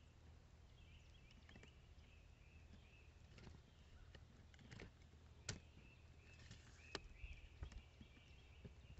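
Near silence: faint outdoor ambience with soft high chirping coming and going, and a few faint sharp clicks about five and a half and seven seconds in.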